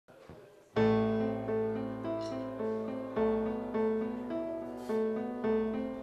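Electronic keyboard playing a bouncy riff of short repeated chords, a new note about every half second over a held bass note, starting just under a second in.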